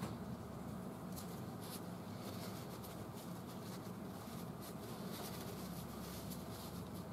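Faint rustling and rubbing of a paper towel as small metal trunnion rebuild-kit parts are wiped clean by hand, in short scattered strokes, over a steady low hum.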